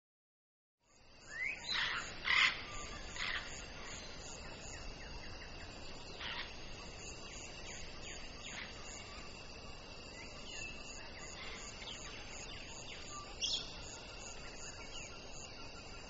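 African grey parrot calling: a quick run of short whistles and squawks about two seconds in, then single calls every few seconds. A steady hiss of background noise and a faint high steady tone sit underneath.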